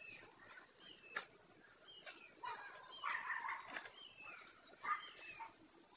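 A dog whining softly in a string of short, falling whimpers, with a single faint click about a second in.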